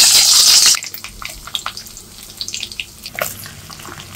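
Whole boiled eggs sizzling loudly in hot oil in a wok, cut off abruptly under a second in. After that comes a much quieter frying sizzle with scattered pops and crackles, from prawns frying in oil.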